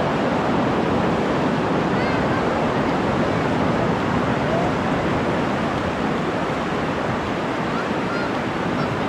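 Atlantic Ocean surf breaking on the beach: a steady, continuous rush of waves, with a few faint short chirps over it.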